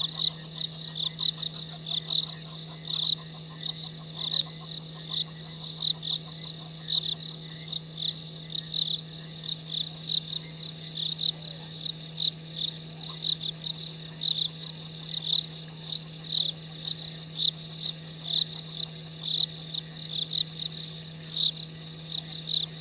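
Frogs calling in a night chorus: short high-pitched calls repeating about twice a second, overlapping one another, over a steady low hum.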